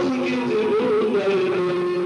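Turkish folk music played on a long-necked plucked lute (bağlama), a melody of stepping notes with one note held steadily through the second half.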